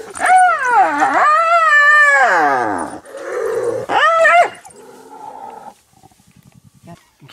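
Spotted hyena crying out in pain while an African wild dog bites its nose: loud, high, wavering squealing cries, first a long one that dips and rises again, then a shorter one about four seconds in, followed by a quieter low rattling near the end.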